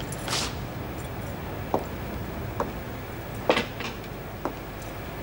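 A few scattered footsteps and light knocks on a hard floor, about six in five seconds with the loudest about three and a half seconds in, over a steady low room hum.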